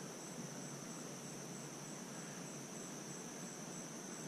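Crickets chirring steadily in a high, continuous trill with a faint even pulse.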